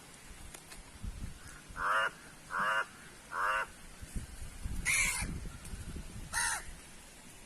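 A bird calling: three short calls about two-thirds of a second apart, then two more calls, the first of them the loudest.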